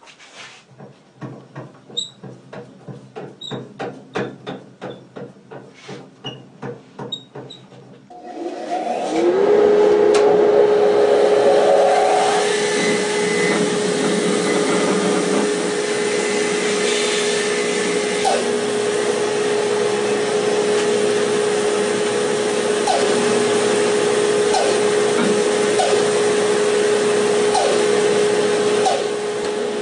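A quick run of clicks as the bandsaw's upper blade guide is cranked down. Then, about eight seconds in, the Rikon bandsaw is switched on: its motor spins up with a rising hum that settles into a steady tone, and the saw runs while the blade rips the bark off one side of a log section.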